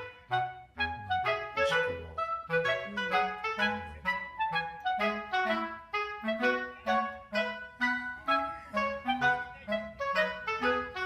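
Background instrumental music: a quick melody of short notes in a woodwind-like tone over a moving bass line.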